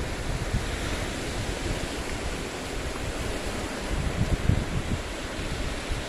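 Small lake waves washing in on a rocky shore, a steady rush of surf. Wind buffets the microphone in low gusts, strongest about four to five seconds in.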